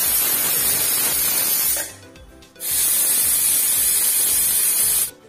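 Stovetop pressure cooker whistling: two loud blasts of hissing steam from the weight valve, each about two and a half seconds long with a short pause between. The whistles signal that the cooker is at full pressure and the yam is cooking.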